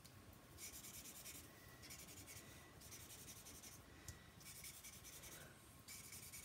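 Felt tip of an alcohol marker scribbling on vellum: a faint, scratchy rubbing in repeated strokes, each about a second long, with short pauses between.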